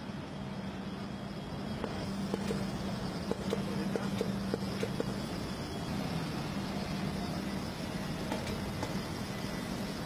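Factory assembly-hall ambience: a steady machine hum with a low drone, and a quick run of light clicks in the middle while a vacuum-cup lifter sets a windshield into a car body.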